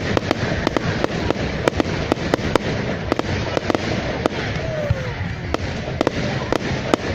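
Fireworks display going off: a quick, irregular string of sharp bangs and cracks, several a second, over a continuous wash of crackling and booming.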